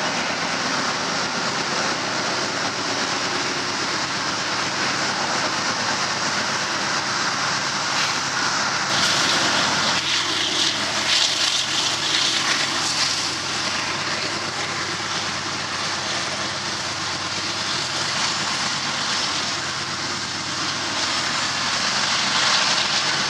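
Loaded coal train's hopper cars rolling past over a girder bridge: a steady rumble and rail noise. It grows a little louder and hissier for a few seconds about nine seconds in.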